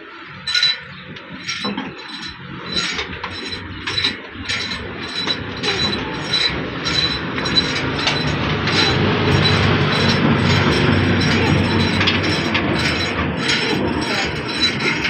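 Newshahi single-cylinder horizontal diesel engine being hand-cranked from cold, its heavy flywheel spinning up: a rhythmic metallic clacking, a little under two a second at first, that quickens and grows into a louder, steady clatter.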